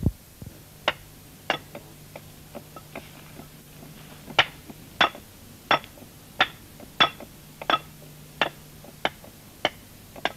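Hand axe chopping into a green oak log, hewing its surface: a few faint blows at first, then sharp, evenly paced strokes about one and a half a second from about four seconds in.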